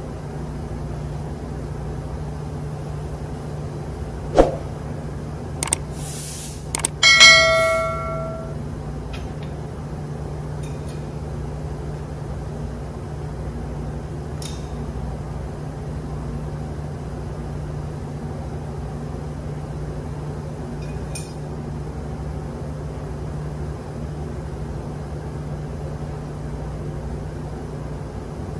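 Steady low hum of machinery throughout. A sharp metal knock comes about four seconds in. About seven seconds in, a steel tool strikes metal and rings like a bell for about a second. A few faint ticks follow later.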